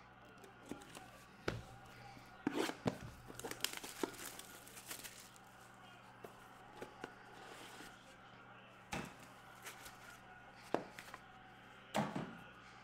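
Sports-card pack packaging being torn open and crinkled, with scattered light clicks and rustles of the cards being handled, in short bursts.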